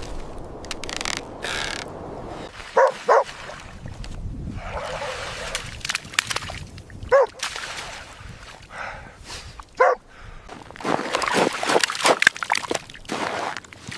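Short animal calls, four in all: two in quick succession about three seconds in, then single ones about seven and ten seconds in, over a noisy background. A stretch of rustling noise follows near the end.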